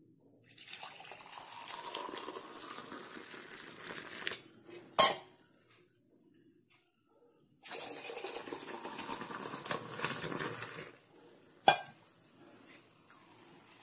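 Hot milky ginger tea poured from a height between two stainless steel mugs to froth it, as in pulled tea. There are two pours, each a splashing stream of about three to four seconds. Each pour is followed by a sharp metal clink.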